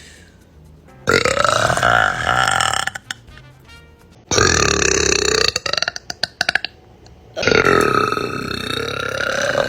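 Three long, loud burps by women, each drawn out for one to two and a half seconds, with short pauses between. The last burp is the longest.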